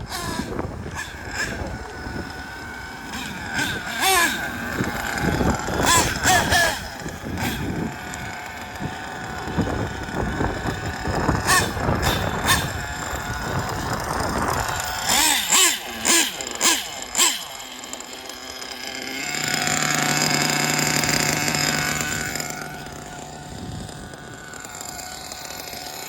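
Kyosho Inferno Neo ST 3.0 RC truggy's small nitro engine revving in short rising and falling bursts. Near the end it runs at a steady high pitch for about four seconds.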